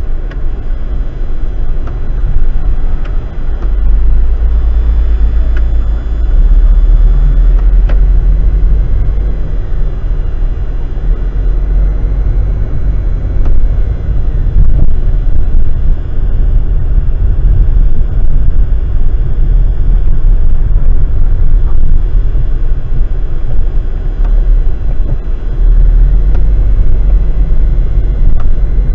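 Car driving slowly, heard from inside the cabin: a loud, steady low rumble of engine and tyres on the road that swells and eases as it goes.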